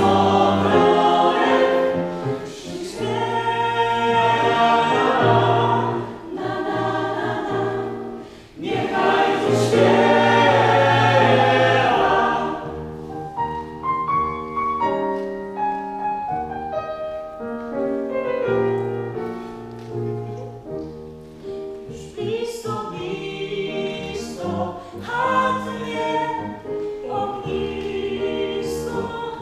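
Mixed choir of men's and women's voices singing a slow choral song in held chords, loud for the first dozen seconds with a short breath break, then softer.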